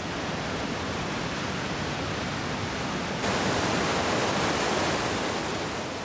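The Tuolumne River cascading as white water down granite slabs: a steady rush of falling water that grows louder and brighter about halfway through.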